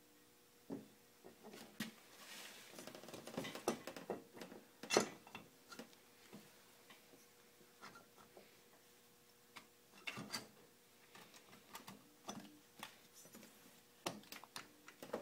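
Irregular light metal clicks, taps and scrapes as the cast-aluminium cylinder head of a Honda 300 ATV engine is lowered over the studs and seated on the cylinder, with the sharpest knock about five seconds in and further bunches of taps near the middle and end.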